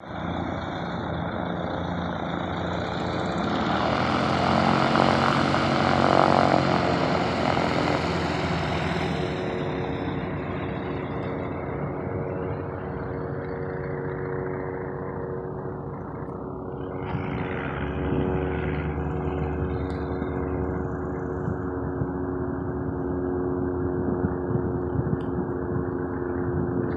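Light single-engine plane, a Cessna 172S Skyhawk SP with its four-cylinder Lycoming engine and propeller, droning as it flies past, swelling to its loudest about five to seven seconds in and then easing off. A steady engine hum carries on for the rest.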